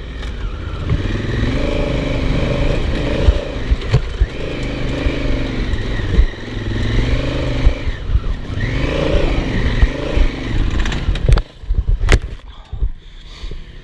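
Honda Africa Twin's twin-cylinder engine revving up and down under load as it climbs a steep dirt hill. About eleven seconds in come several sharp clattering knocks and scrapes as the bike goes down, and the engine sound drops away.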